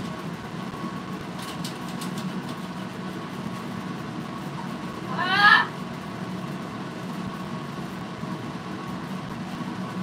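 A parrot gives one short rising call about halfway through, over a steady low hum.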